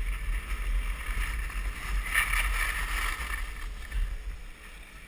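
Skis hissing and scraping over packed snow, with wind rumbling on the microphone of a skier's camera as it moves downhill; both ease off near the end as the skier slows.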